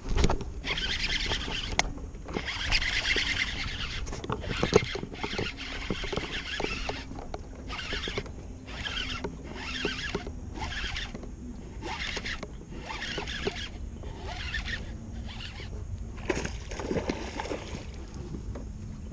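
Baitcasting reel being cranked in short spurts with pauses between, about one a second for much of the time, as a topwater frog lure is worked. Near the end a splash as a fish strikes the frog.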